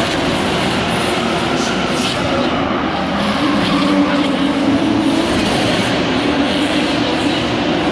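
Nissan GT-R R35 drift car with an RB34DET straight-six swap, its engine held at high revs through a sustained drift, with tyre noise. The engine note shifts in pitch around the middle.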